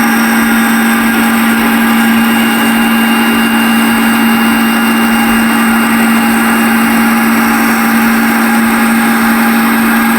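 Table saw running steadily at full speed, with a constant motor hum and the blade's whir.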